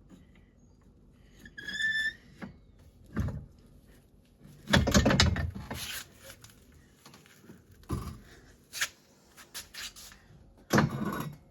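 A small trailer being moved by hand: a short high squeak about two seconds in, a knock, then a loud scraping rattle about five seconds in, a few sharp clicks, and another loud clatter near the end.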